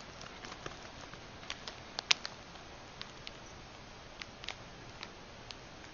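Light, irregular clicks and taps over a faint steady hiss, the loudest a sharp click about two seconds in.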